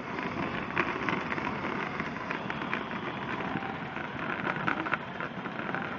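Power Wheels Cadillac Escalade ride-on toy driving over asphalt: a steady rolling noise from its plastic wheels on the rough road surface, with small ticks scattered through it.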